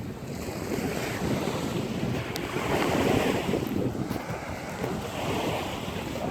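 Wind buffeting the microphone, a low rumbling gust noise that swells about halfway through.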